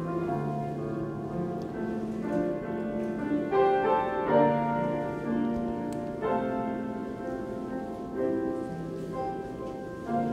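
Slow instrumental bridal processional music led by piano, its chords changing every second or two.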